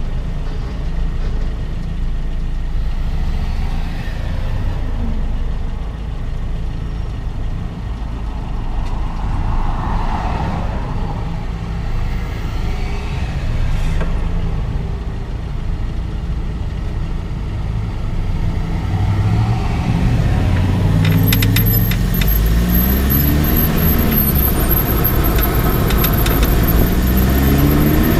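Road and tyre rumble picked up at a Lotus Elise's front left wheel while driving, the microphone mounted on the suspension. In the last third the engine note rises several times as the car accelerates through the gears, with a short run of sharp ticks among it.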